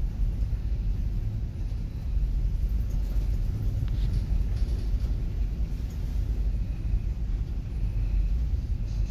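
Low, steady rumble of the ferry's engines, heard from the open deck with wind buffeting the microphone.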